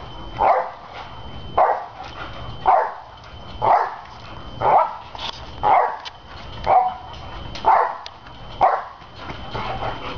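Boxer dog barking about once a second, in time with its bounces on a trampoline, each bark with a dull thump of the trampoline mat beneath it.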